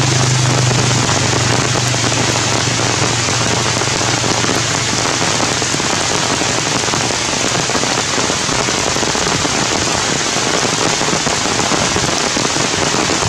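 Heavy rain falling steadily on forest leaves, a continuous even hiss.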